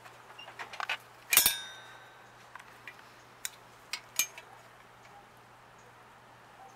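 Metal clinks and taps from hand tools and a thin aluminium bracket being handled, with one louder ringing clank about a second and a half in, followed by a few lighter clicks.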